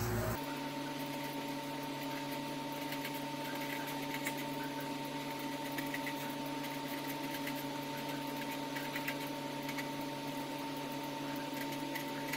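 Felt-tip marker scratching on paper in short strokes as numbers are written, faint under a steady electrical hum of several tones.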